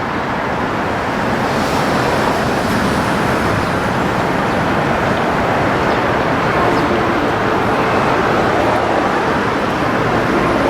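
Steady road traffic noise from vehicles driving by.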